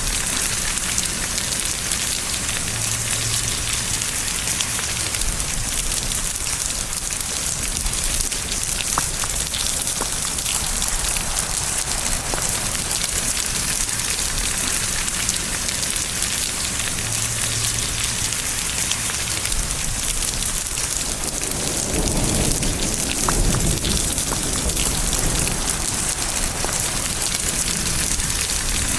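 Steady rain falling and pattering on surfaces, with a low rumble of thunder swelling up about three quarters of the way through and fading a few seconds later.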